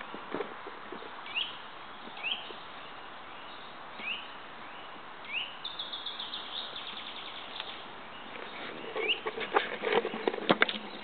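Small birds calling: a short rising chirp repeated every second or two, and a fast rattling trill about halfway through. Near the end comes a spell of crackling rustles in dry leaf litter.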